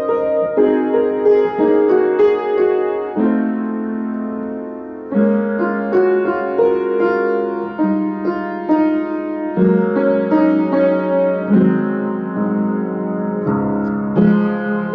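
Upright piano being played: a melody over sustained chords, holding one chord for about two seconds a few seconds in before the playing moves on.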